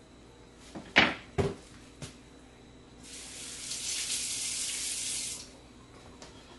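Two sharp knocks about a second in, then a kitchen faucet running for about two and a half seconds with a steady hiss of water, turned on and off.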